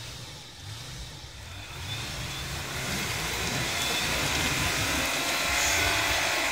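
4x4 SUV engine revving under load while stuck in deep snow and being pulled out on a tow line, its tyres spinning and spraying snow; a loud hiss of spinning wheels and flung snow builds from about two seconds in.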